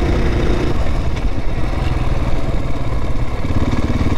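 Adventure motorcycle engine running under way, with a constant low rumble; its steady note breaks off about a second in and comes back lower near the end.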